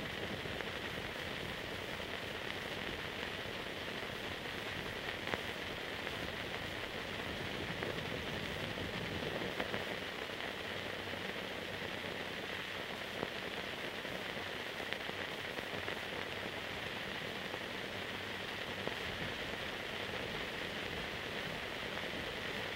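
Steady hiss with a few faint clicks, the noise floor of an old silent film transfer; no sound from the scene itself.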